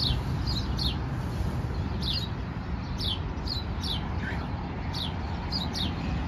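Small birds chirping: short, high, falling chirps, about two a second, over a low steady rumble.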